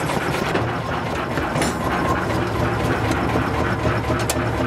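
The fire burning in the open firebox of a 1906 Advance steam traction engine, a steady rushing noise, with a couple of sharp metallic clicks from the firebox door and its fittings.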